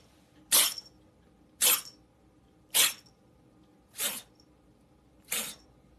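A cat sneezing five times in a row, a little over a second apart, each a short sharp burst; the last two are weaker.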